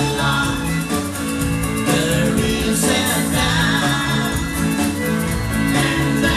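Live band playing an upbeat song with guitar, bass and drums, with singing over it.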